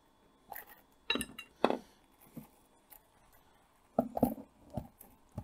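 A string of light, irregular clicks, knocks and clinks of hard plastic and metal parts being handled as a solder spool holder is set onto the top mount of a portable soldering station.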